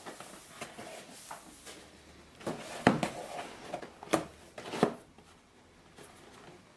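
Handling of a newly unboxed mechanical keyboard and its packaging: rustling with about five sharp knocks, the loudest about three seconds in, then quieter for the last couple of seconds.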